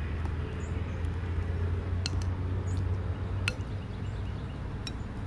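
Eating utensils clinking and scraping against bowls a few times over a steady low rumble.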